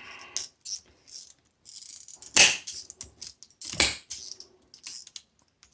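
Cutters snipping through the copper windings of a washing machine motor: two sharp snaps about two and a half and four seconds in, amid light metallic clinking and handling.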